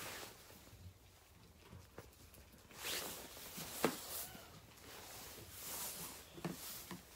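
A sheep moving about in its pen: irregular rustling and scuffing of hooves and body on the bedding, with one sharp knock a little before the middle.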